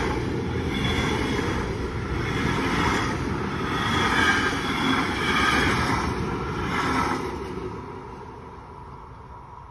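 Container freight train passing over a level crossing, its wagon wheels rumbling and clattering in a beat of roughly once a second. The sound fades away from about seven seconds in as the last wagons move off.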